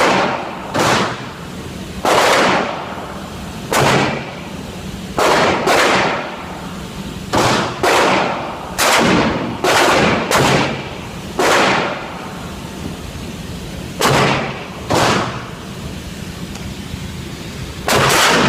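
Gunfire at a shooting range: about sixteen sharp shots at an irregular pace, some in quick pairs, each trailing off in echo.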